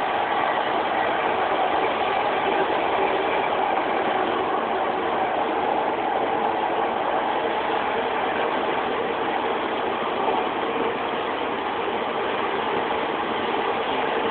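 Steady interior noise of a Class 156 Super Sprinter diesel multiple unit: the underfloor Cummins diesel engine running evenly, heard inside the passenger saloon, with a faint steady hum and no rail-joint clicks.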